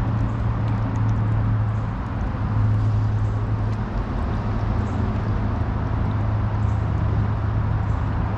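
Steady rush of flowing creek water over a riffle, with a low steady hum underneath.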